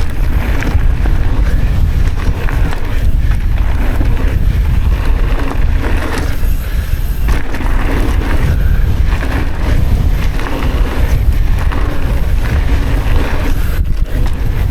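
Wind buffeting the microphone over the steady rolling rumble of mountain bike tyres on a dirt trail while riding at speed.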